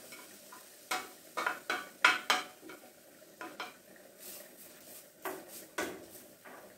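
Spatula scraping grated onion off a metal plate into a frying pan of olive oil, then stirring it, with a string of irregular scrapes and clacks against the plate and the pan.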